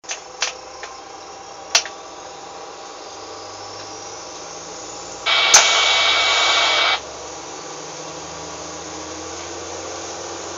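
Diesel railcar running along the track, a steady engine and rail noise that climbs slightly in pitch as it pulls. A few sharp clicks come in the first two seconds, and a loud hissing burst with a tone through it starts about five seconds in and lasts about a second and a half.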